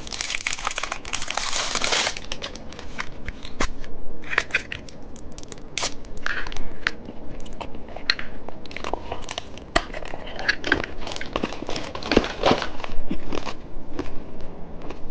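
Plastic candy wrapper crinkling and being torn open: a long dense crinkle in the first two seconds, then scattered crinkles and clicks as the packaging is handled.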